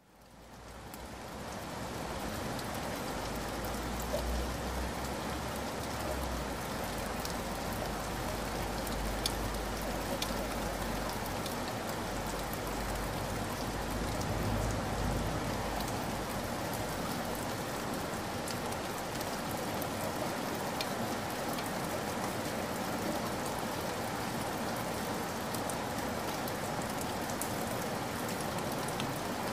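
Shallow stream trickling and babbling over gravel: a steady, even rush of water that fades in over the first couple of seconds, with a low rumble in the first half.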